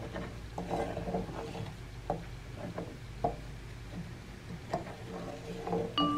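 Light taps, clicks and small scrapes of kitchen utensils and dishes being handled, over a faint steady hum. A few notes of mallet-percussion music come in at the very end.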